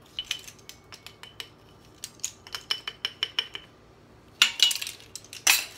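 Measuring spoon and spice jar clicking and tapping as dried herbs are spooned out, in a string of short light clicks, with a few louder brief rattles near the end.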